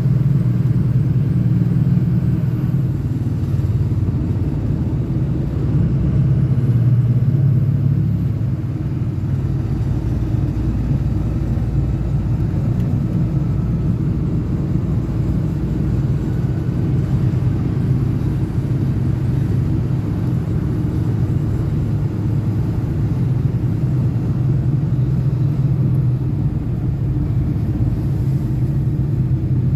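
Diesel pickup truck, a 6.0L Power Stroke V8 turbo diesel, running on the road at a steady pace: a steady low engine drone with road noise, easing slightly about eight seconds in.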